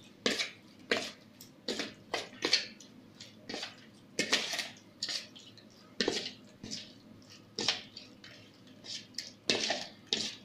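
Metal spoon stirring marinated chicken pieces in a plastic bowl: short scraping clacks against the bowl with wet squelches, about one or two strokes a second, uneven.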